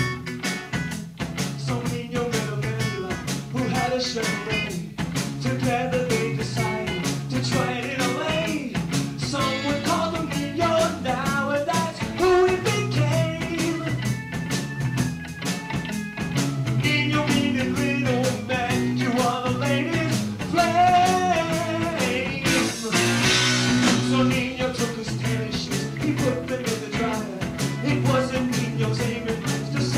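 Live recording of a rock-and-roll song: electric guitar, bass and drums with a steady beat, and a singing voice at times.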